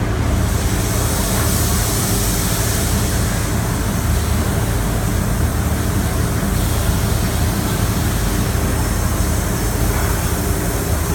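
Huan Hung HH-CNC-85-4TC-2000 linear CNC profile machine running: a steady, loud mechanical hum with an even rushing noise over it, with no pauses or separate impacts.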